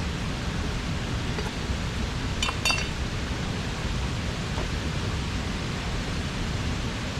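Steady rush of a mountain stream, with a couple of light clinks about two and a half seconds in.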